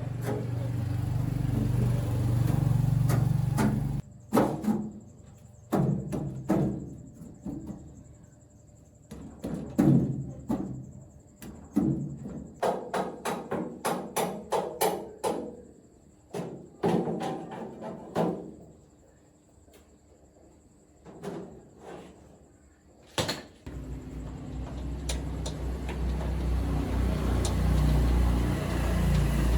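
A series of irregular knocks and taps, some ringing briefly, between stretches of a steady low rumble that stops about four seconds in and builds back up near the end.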